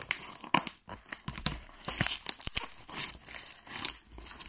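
Brown packing tape and paper wrapping being torn and crumpled by hand while a parcel is opened, a run of irregular crackles and rips.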